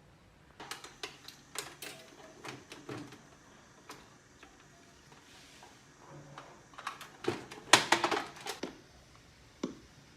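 Hands working on a restored military radio set: a series of sharp clicks and light knocks in two bursts, the loudest cluster about eight seconds in, and one last click near the end.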